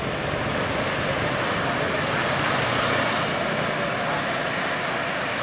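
Road traffic: a vehicle passing close by, its engine and tyre noise swelling to a peak about three seconds in and then easing off a little. No horn sounds.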